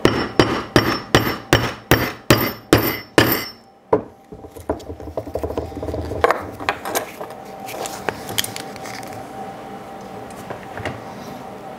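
Hammer striking a metal rivet-setting tool about ten times in quick succession, about three blows a second, each with a bright metallic ring off the steel bench block, driving the washer down onto a copper rivet. After that come quieter clicks and rustling as the leather strap and the next rivet are handled.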